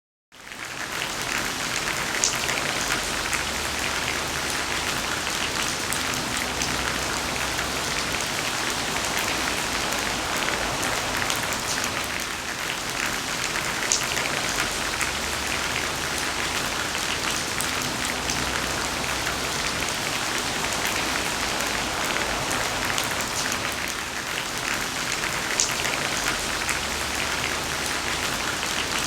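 Steady rain falling on a surface, an even hiss with a few louder single drop hits; it comes in abruptly from silence at the very start.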